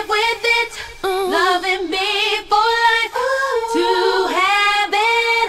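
R&B vocals sung with no beat underneath: a woman's voice holding and bending long notes with a wavering pitch.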